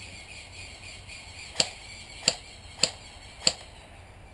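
Scoped airsoft rifle firing four sharp single shots about two-thirds of a second apart.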